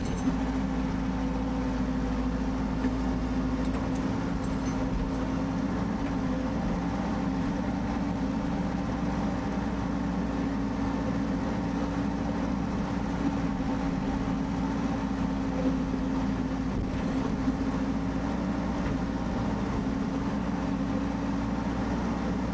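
Rippa R32 mini excavator's diesel engine running at a steady speed, with a constant hum and no change in pitch.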